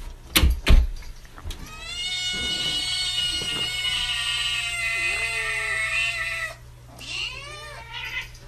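A cat gives one long drawn-out yowl lasting about five seconds, followed near the end by a few short meows that rise and fall in pitch. A couple of thumps come just before the yowl.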